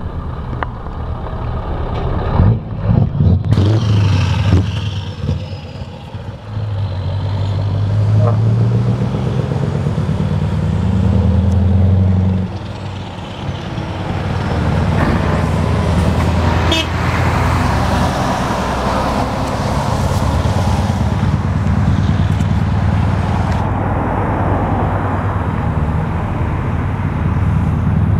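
Scania R500 V8 truck engine running with its exhaust open (straight-through): a few loud short revs, then pulling away, the note rising through a gear until a shift about twelve seconds in, then running on steadily as the truck moves off.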